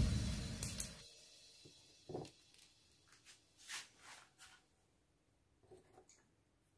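Background electronic music fading out in the first second, then faint handling sounds: a couple of sharp clicks, a soft knock about two seconds in, a brief scrape near four seconds and a few light clicks near the end, as a small ring and metal clip are handled over sandpaper.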